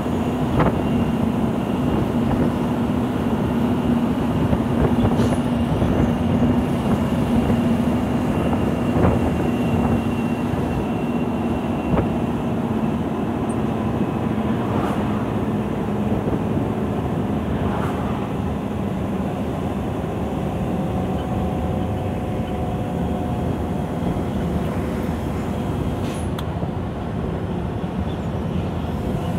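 Scania 164L 580's V8 diesel engine running steadily, heard from inside the truck's cab while it travels downhill; its hum sinks slowly in pitch over the first two-thirds. A few light cab knocks come through now and then.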